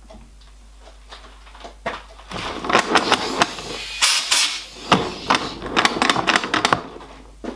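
Metal clatter at a metalworking lathe: a quick run of clicks, knocks and rattles as curled steel swarf is cleared off the lathe tool bit. It starts about two seconds in and stops shortly before the end.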